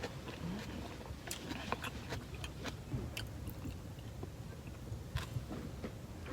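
A person chewing and biting food close to the microphone: irregular small crunches and clicks over a low, steady rumble.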